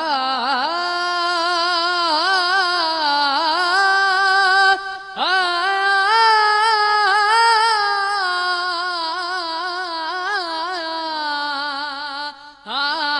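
A young man singing a devotional song solo into a microphone, unaccompanied, in long ornamented held phrases. He breaks for breath about five seconds in and again near the end.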